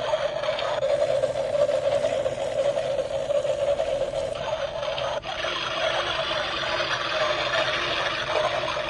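Battery-powered toy washing machine running with a steady small-motor whir, broken off for a moment about five seconds in before it carries on.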